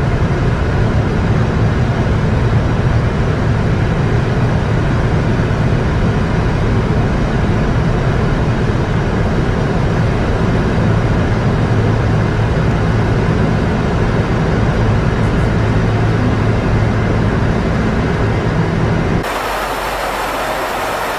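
Boeing 747-400 in flight heard from inside the fuselage: a steady jet engine drone and airflow rush with a strong low hum. About two seconds before the end it switches to a thinner, hissier airflow noise with less low rumble.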